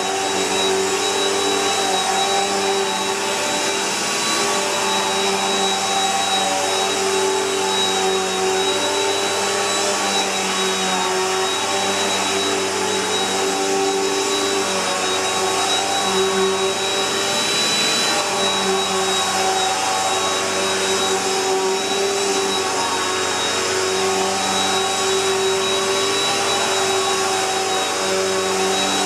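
Bissell PowerLifter Bagged Pet upright vacuum cleaner running steadily: a constant motor hum with a thin high whine over the rush of air.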